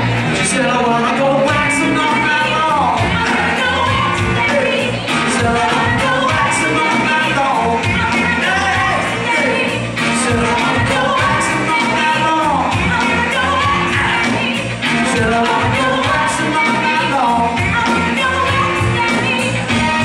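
A live band with saxophones, electric guitar, bass and drums plays loudly, with singing over it.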